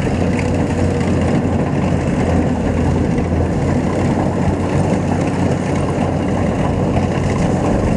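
Kubota DC95 combine harvester, fitted with a DC105 header and gearbox, running steadily as it cuts rice: a loud, even diesel engine drone with the machinery turning under it.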